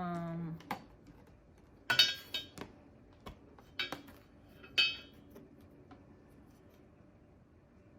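Hard objects being handled: a few sharp clinks and knocks with a short ringing tone, the loudest about two seconds in and another near five seconds.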